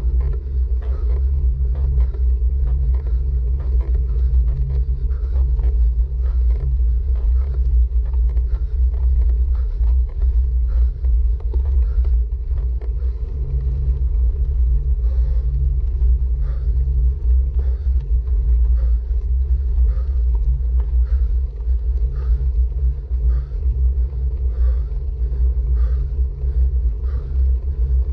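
Steady low rumble of wind and road vibration picked up by a camera riding on a road bike during a climb, with faint short ticks recurring about once a second.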